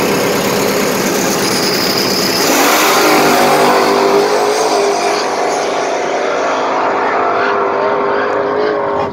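G-body drag car launching from the starting line and running at full throttle down the strip. The engine sound holds loud throughout.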